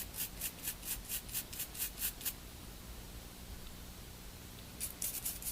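Soft-bristled toothbrush wet with alcohol scrubbing a water-damaged phone's circuit board and contacts. Quick back-and-forth strokes, about five a second, stop a little over two seconds in and pick up again briefly near the end.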